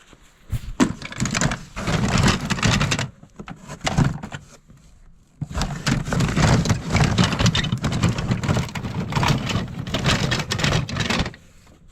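Plastic toys and action figures clattering and rustling as a box of them is rummaged through, in two long stretches with a pause between.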